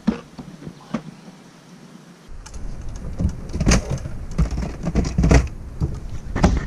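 Clattering and knocking of plastic tackle boxes and the hinged storage-locker lid of a fibreglass bass boat as gear is handled, with a few sharper knocks. A low rumble comes in about two seconds in.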